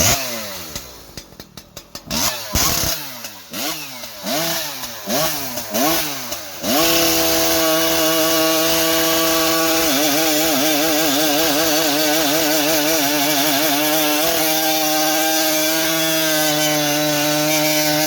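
Husqvarna 3120xp two-stroke chainsaw with a tuned expansion-chamber exhaust pipe, revved in a series of quick throttle blips. About seven seconds in it is held at steady high revs, with the pitch wobbling for a few seconds in the middle.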